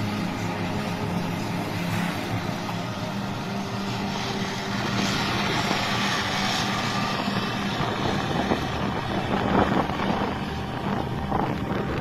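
Heavy 15-litre diesel engine of a John Deere 9620RX tracked tractor running steadily under ploughing load, with a rushing noise joining about halfway through.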